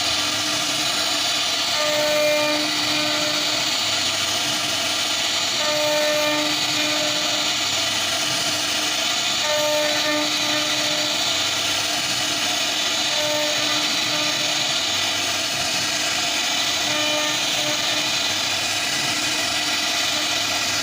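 CNC router spindle running with its bit cutting into wood, a steady high hiss. A lower hum rises and fades every three to four seconds.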